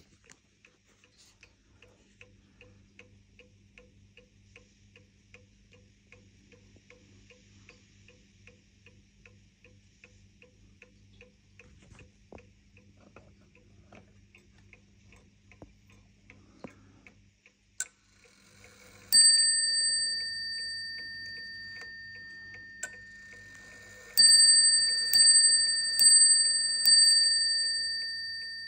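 Planchon French mantel clock ticking faintly and steadily, then striking: one ringing stroke about two-thirds of the way in, and four more strokes about a second apart near the end, each ringing on and slowly dying away.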